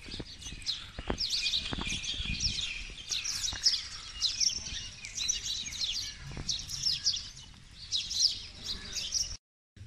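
Many small birds chirping and calling over one another in a dense morning chorus, with a few faint low knocks underneath. It cuts off abruptly near the end.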